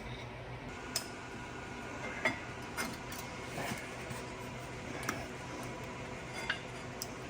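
Light metallic clicks and clinks of hand tools against brake parts, about half a dozen scattered over several seconds.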